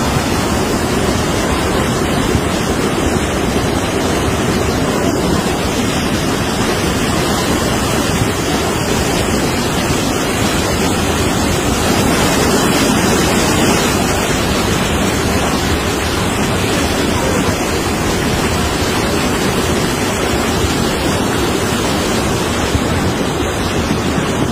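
River in flash flood: a torrent of muddy floodwater rushing past in a loud, steady rush of water.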